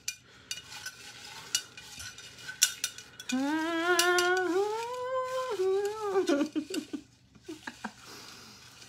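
Folded paper name slips rustling and shifting as a hand stirs them around in a glass jar. About three seconds in, a woman's voice sings a short wordless wavering tune for about three seconds, the loudest sound here, and then the rustling goes on.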